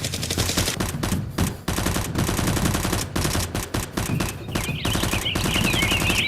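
Rapid automatic gunfire in long continuous bursts, the gunfire effect laid over a Nerf blaster fight. About four seconds in, a high wavering whine joins it.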